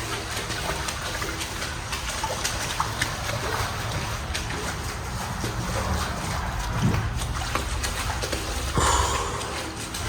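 Water splashing and sloshing, with a louder splash about nine seconds in.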